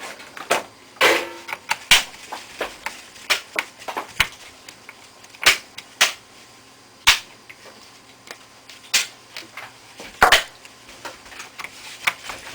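Small metal screws and a screwdriver clicking and tapping against a laptop's plastic case during reassembly: sharp, irregular clicks with uneven gaps, a few louder knocks among them.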